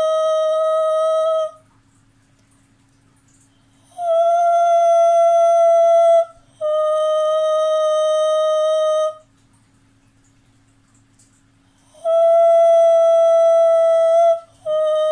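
A woman's voice vocalising long, steady high notes in pairs of two to three seconds each, with short breaths between them and longer pauses between pairs, the pitch stepping slightly up and down from note to note.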